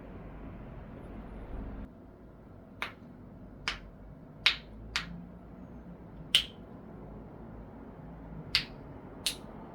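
Joints popping during a chiropractic adjustment: seven short, sharp cracks at uneven intervals as the body is pressed, over a faint room hum.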